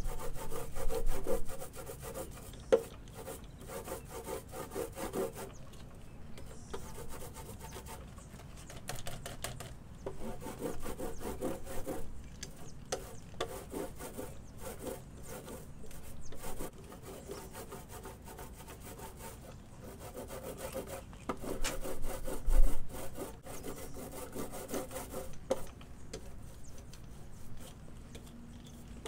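A 6-inch fine-nap wool paint roller rolling wet polyurethane paint onto a fiberglass panel: a rubbing swish in repeated back-and-forth strokes, coming in spells with short pauses between. A few short knocks, the loudest about three-quarters of the way through.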